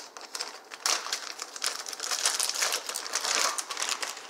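Plastic frozen-fruit bag crinkling as it is pulled open and handled, getting busier about a second in.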